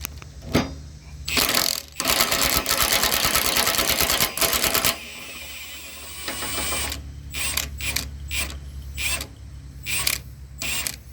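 Cordless impact wrench turned down to its lowest setting, spinning a mower deck-wheel bolt in without tightening it. It gives a short burst, then about three seconds of running with rapid hammering, followed by scattered clicks and knocks.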